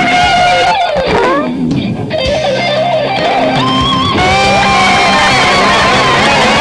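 Electric guitar lead playing long held notes that slide down in pitch about a second in and bend up again, over steady low sustained chords.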